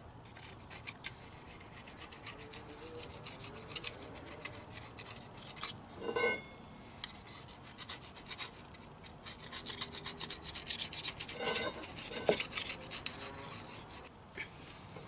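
Knife blade scraping rust and hardened crud off the steel seal mating surface of a semi truck's axle housing, in quick repeated strokes with short pauses. Brief squeaks come about six seconds in and again past eleven seconds.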